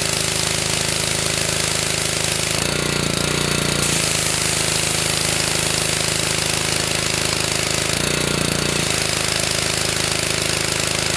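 Honda small petrol engine running a CAT pressure washer pump, steady and loud with a fast pulse. Its pitch shifts briefly about three seconds in and again about eight seconds in.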